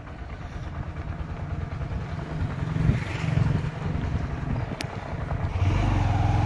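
Small two-wheeler engine running steadily at low speed, with wind noise on the microphone; it gets louder about five and a half seconds in.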